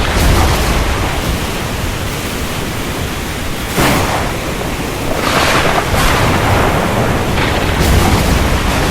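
Stormy ocean: a steady rush of surf and wind, with waves breaking several times, one starting suddenly about four seconds in.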